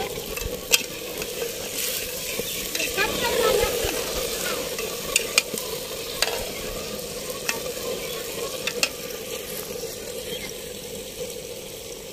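A ladle stirring zarda rice in a metal pot over a wood fire, with a steady sizzle of cooking and a few sharp clicks scattered through.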